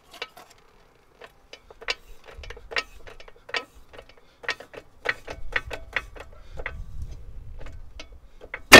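Irregular metallic clicks and ticks, a few a second, as a trolley jack is worked to push a Ford Focus Mk3's steering knuckle up onto the front strut. One loud sharp metal clunk comes just before the end.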